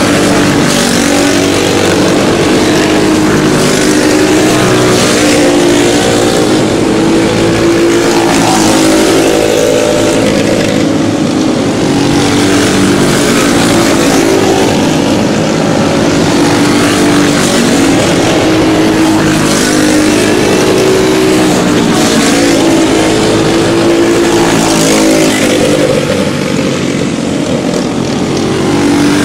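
A pack of racing karts with Briggs & Stratton Animal single-cylinder four-stroke engines running flat out, several engine notes overlapping and rising and falling as the karts accelerate and lift through the laps.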